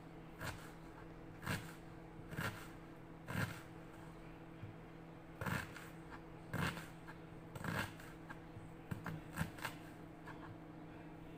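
Kitchen knife dicing an onion into small cubes. The single cuts knock about once a second and come quicker near the end.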